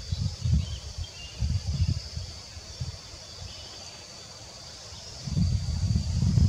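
Wind buffeting the microphone in uneven gusts, heaviest near the end, over a steady high drone of insects and a few faint bird chirps.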